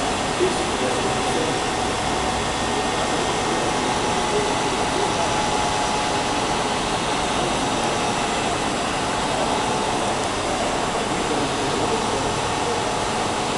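Steady machine running noise with a faint, even whine and no change in speed, and a small knock about half a second in.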